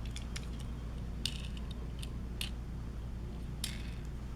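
Faint small clicks and ticks of a die-cast toy car being handled, its plastic wheels spun and rolled by hand, with three short scratchy rasps.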